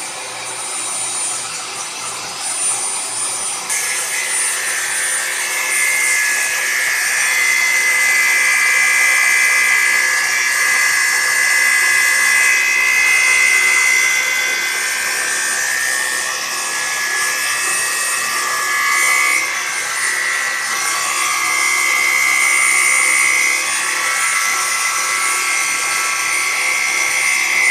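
Bosch angle grinder's cut-off disc cutting into the metal of a 3-inch vise, fed by a CNC router under running water. It runs with a high whine, then a loud, steady grinding screech comes in about four seconds in as the disc bites, wavering a little in pitch as the cut goes on.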